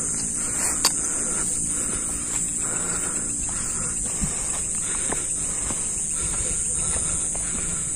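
A steady, high-pitched chorus of night insects trilling without a break, with a softer pulsing trill lower down. Underneath are low, uneven scuffs of footsteps on a dirt path and a few small clicks.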